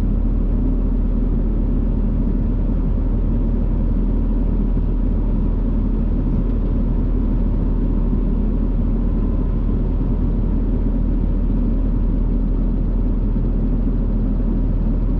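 John Deere 7200 tractor's diesel engine running at a steady speed, a constant low rumble with no change in pitch.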